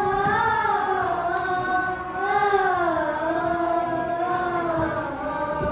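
Children's choir singing a slow melody in long held notes, two phrases with a short break about two seconds in.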